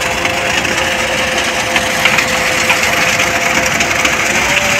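Ajax self-loading concrete mixer running steadily while wet concrete pours down its chute into a rebar-caged footing, a gritty pouring noise over the engine's steady hum.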